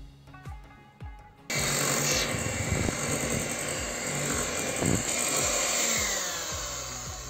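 Electric hand mixer switched on about a second and a half in, its beaters running steadily through chocolate cake batter as flour is mixed in. Its sound eases slightly near the end, over background music.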